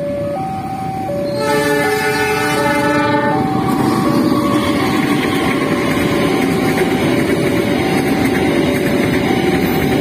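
Level-crossing alarm sounding a steady alternating two-pitch warning while a freight train passes. About a second in, the locomotive's horn blows a chord for roughly two seconds as a warning at the crossing. After that comes the steady running noise of the container wagons rolling over the crossing.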